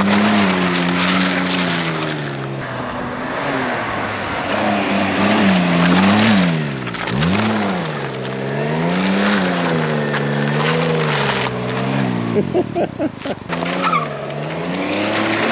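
Can-Am Ryker 900's three-cylinder engine revving up and down over and over as the trike is ridden hard. About twelve seconds in there is a short run of quick stuttering pulses.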